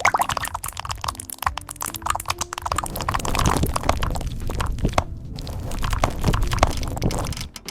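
Keys of a computer keyboard being typed on rapidly in a dense run of clicks, with background music underneath.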